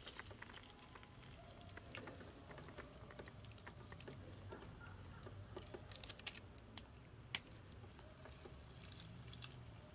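Faint scattered crackles and ticks of dry leaves and grit shifting as a large snake crawls over concrete steps, with one sharper click about seven seconds in, over a low steady rumble.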